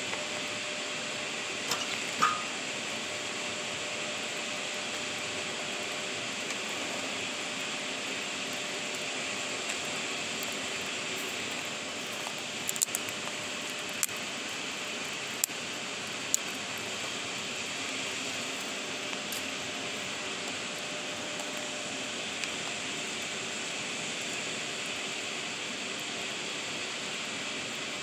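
Wood fire burning in a steel fire-pit bowl: scattered sharp crackles and pops over a steady rushing hiss. The loudest pop comes about two seconds in, and a few more cluster around the middle.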